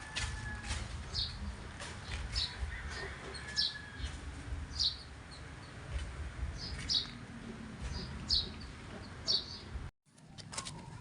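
A small bird chirping short, high notes every second or so over a steady low rumble. The sound drops out for a moment near the end.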